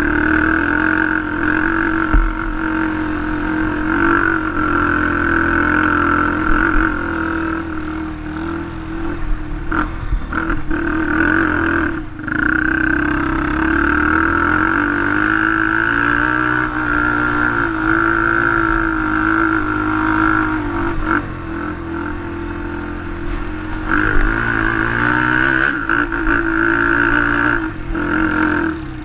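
ATV (quad) engine running hard on the throttle in sand, its pitch rising and falling as the rider works the throttle, with a few brief drops as the throttle is let off.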